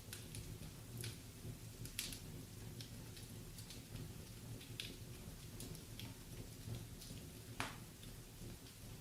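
Wood burning in a fireplace, crackling with scattered sharp snaps over a low steady background. The loudest snaps come about two seconds in and again late on.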